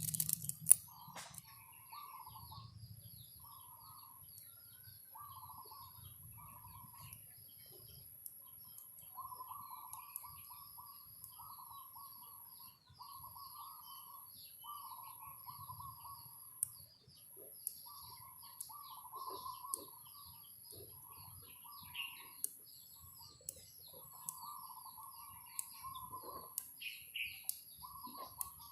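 Small birds chirping and twittering steadily, mixed with lower, longer calls, while small magnetic metal balls click sharply as they snap together every few seconds. The loudest click comes less than a second in.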